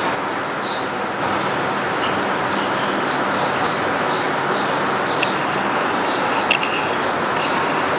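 Small birds chirping, many short high chirps several times a second, over a steady rushing background noise; a brighter, sharper call stands out about six and a half seconds in.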